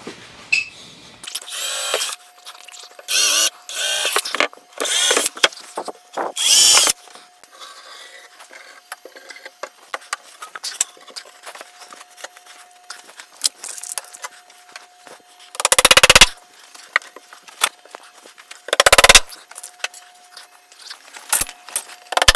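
Cordless drill run in about five short bursts, boring pilot holes through plywood. Later, three loud hammer blows a few seconds apart drive nails into the plywood, with small knocks and handling clicks in between.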